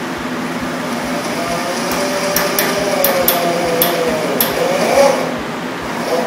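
Half a dozen light metallic clinks, such as hand tools on metal, during work on a battery cable, over a steady fan-like hum. A wavering whine runs through the middle of it.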